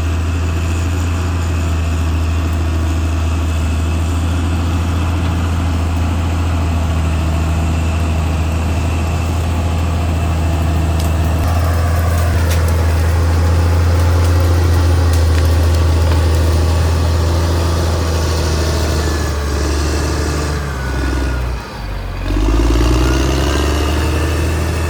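Caterpillar D6R XL bulldozer's diesel engine running steadily. About twenty seconds in the sound dips briefly, then the engine note rises again.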